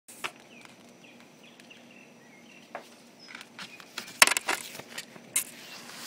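Northern mockingbird singing at night: a run of short, quick whistled notes that bend in pitch, broken by several short, sharp, harsh sounds, the loudest a cluster about four seconds in.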